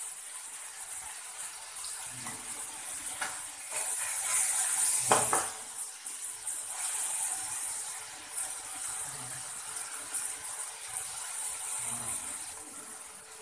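Onion, green chilli and chopped tomato sizzling in oil in an aluminium kadai, with a steel ladle scraping and knocking against the pan as they are stirred. The loudest knock comes about five seconds in.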